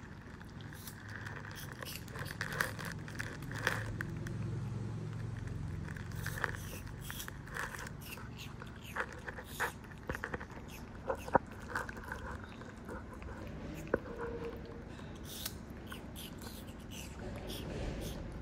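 Baby macaque chewing and biting a piece of fruit: irregular wet smacks and clicks, a few sharper ones about two-thirds of the way in.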